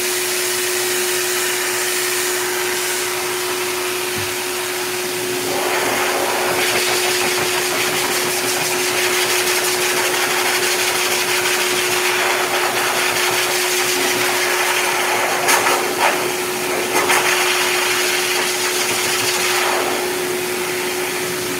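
K-9 heavy-duty forced-air dog dryer blowing through its hose onto a Bernese mountain dog's coat: a steady rush of air over a constant motor hum, which gets louder about five seconds in. A few short clicks come near the end.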